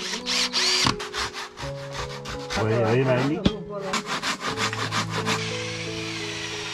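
Hand saw cutting a wooden door frame in two runs of quick back-and-forth strokes, over soft background music.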